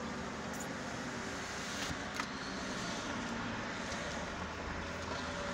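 Car driving in traffic heard from inside the cabin: steady engine and road noise, with two light knocks about two seconds in.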